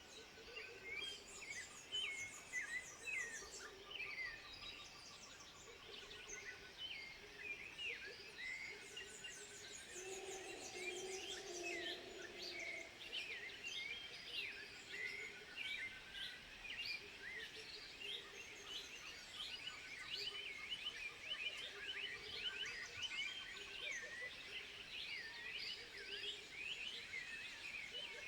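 A dense chorus of animal calls: many short, high chirps and squeaks overlapping all through, with a lower, longer call about ten seconds in.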